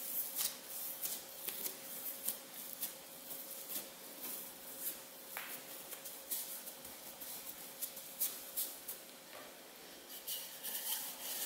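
Hands pressing, folding and patting soft risen yeast dough on a floured countertop: quiet, irregular rubbing and light taps over a faint steady hum.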